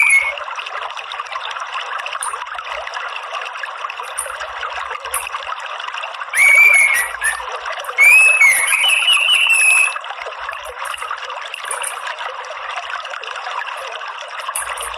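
Orange-headed thrush twittering over steadily trickling water. Two loud phrases of gliding chirps come in the middle, with short, faint high chirps scattered before and after.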